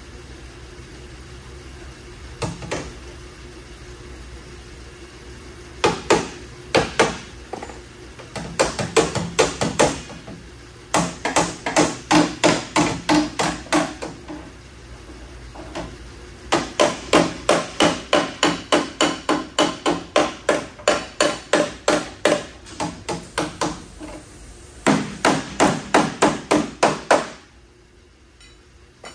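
Hammer striking the van's metal body in runs of quick blows, about three a second, with short pauses between runs. A single blow comes about two and a half seconds in.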